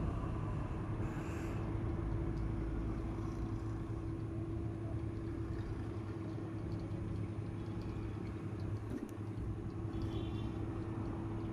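Steady low mechanical rumble with a constant hum from a running motor, unchanging throughout.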